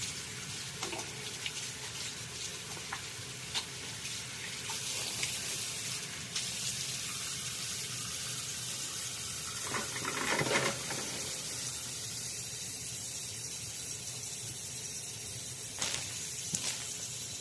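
Water running steadily from a tap into a sink while hands and face are washed, with small splashes throughout and a louder stretch of splashing about ten seconds in.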